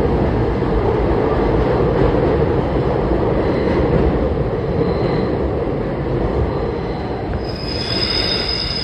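Subway train running through a tunnel with a loud, steady rumble. About seven and a half seconds in, the wheels start a high, steady squeal as the train takes a curve.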